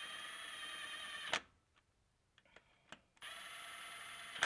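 Milwaukee Fuel cordless ratchet running bolts in on the timing chain guide of a Ford 5.4 3-valve engine: two short runs of steady motor whine, each ending in a sharp click as it stops.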